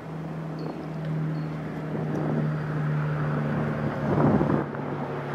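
EMD GP40-2 diesel locomotive approaching, its turbocharged V16 engine giving a steady low hum. Wind buffets the microphone, loudest about four seconds in.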